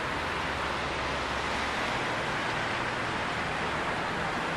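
Steady outdoor street ambience: an even rush of traffic and air with a faint low hum underneath, with no single event standing out.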